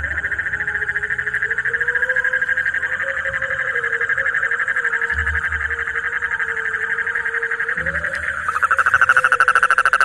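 A male toad calling with its throat sac inflated: one long, unbroken trill of fast pulses. About eight and a half seconds in, the trill becomes louder and harsher.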